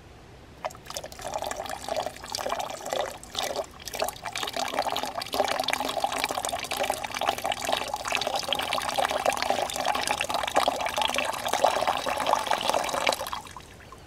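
A stream of cold water pouring into a stainless steel pot of freshly boiled cowboy coffee, splashing on the surface. It starts about a second in, comes unevenly at first, then runs steadily and stops suddenly shortly before the end. The cold water is poured in to settle the coffee grounds.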